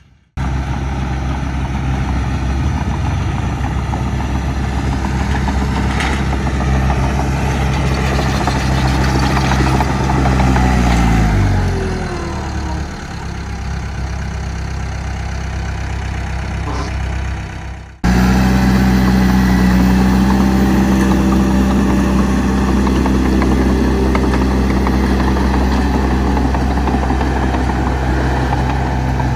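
Heavy diesel engine running steadily. About eleven seconds in the revs drop and its pitch falls. At about eighteen seconds the sound cuts abruptly to another steady engine drone.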